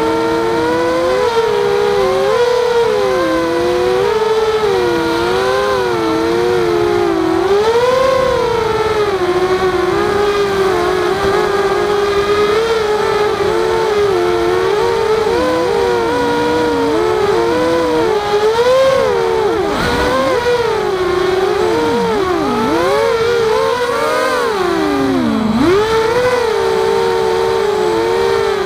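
Walkera Rodeo quadcopter's electric motors and propellers whining, the pitch rising and falling constantly with the throttle and dropping sharply twice near the end as the throttle is cut back.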